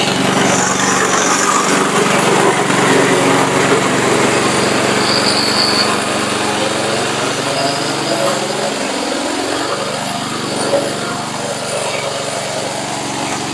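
Engine of a remote-controlled, self-propelled flail mower running steadily under load as its flail shaft chops through thick grass.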